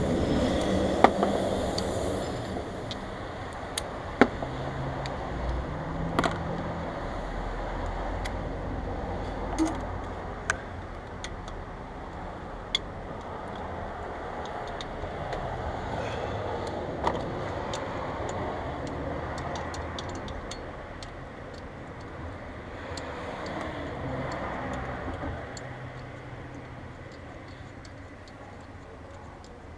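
Scattered sharp metallic clicks and clinks of hand tools working on the belt drive of a Mercedes-Benz engine, over a steady low hum.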